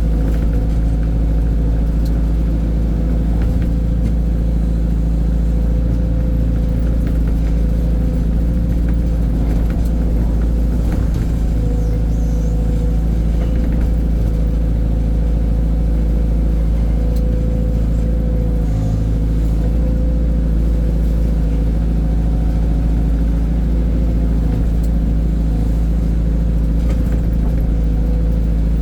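Heavy diesel engine running steadily at a constant pitch, a loud low drone with no revving.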